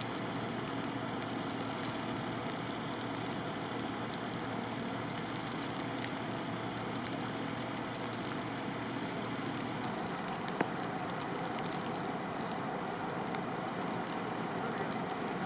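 Steady rushing noise, with a single sharp click about ten and a half seconds in.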